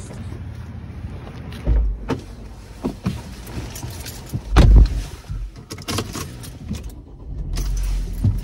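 A person getting into a car: rustling and footsteps, a heavy thump about halfway through as the driver's door shuts, then scattered small clicks and rattles of keys and fittings inside the cabin.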